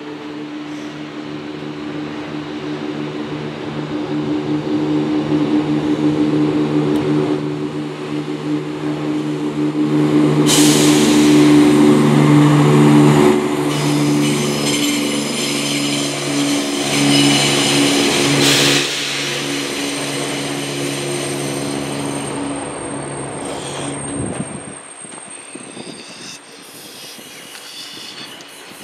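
Container freight train on the move behind a diesel locomotive, with a steady droning hum. In the middle a CrossCountry diesel multiple unit passes with a loud rush of wheel and rail noise. The hum cuts off about 24 seconds in, leaving quieter rolling wagon noise.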